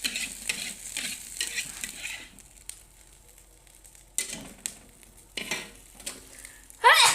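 Spatula stirring and scraping stir-fried egg and tofu in a sizzling pan, quick strokes for the first couple of seconds, then a few separate scrapes, with a loud short sound just before the end.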